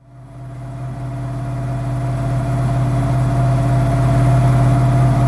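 Honda VFR800's V4 engine idling steadily at an even pitch. It fades in and builds over the first couple of seconds, then cuts off abruptly at the end.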